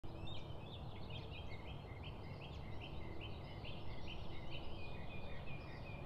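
A small songbird chirping: a long run of short, quickly repeated notes, about three a second, over a faint low rumble.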